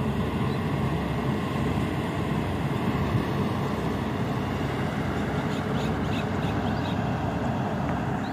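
Wind buffeting the microphone: a steady low rumble that stays at a constant level.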